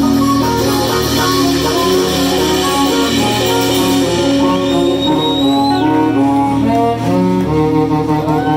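Live blues band playing an instrumental passage without singing, with long held notes and some sliding ones.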